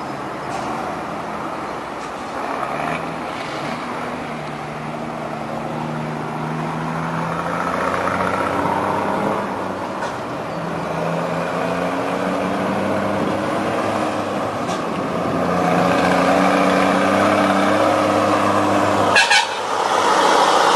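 A vehicle engine running under way, its pitch climbing in several rising sweeps as it accelerates and growing louder. A short sharp hiss comes near the end, and the low engine note drops away after it.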